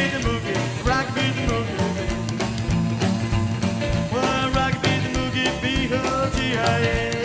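Rockabilly band recording: upright bass and electric guitar over a fast, steady beat.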